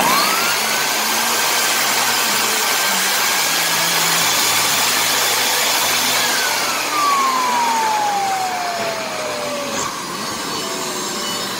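Shini vacuum loader's brushed fan motor switched on, its rushing whine rising quickly to a steady pitch and running for about six seconds, then switched off and winding down with the whine falling over about four seconds. The motor is sparking heavily at its damaged carbon brushes.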